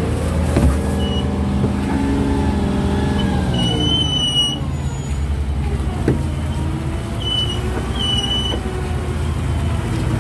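Boat engine running steadily with a low drone, its pitch slowly wavering. A few short high-pitched tones sound about four seconds in and again near eight seconds, with a couple of light knocks.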